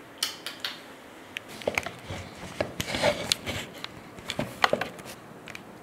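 Close handling noise: scattered light clicks and rustles, bunched in the middle, as a handheld phone camera is moved about and a facial wipe is handled.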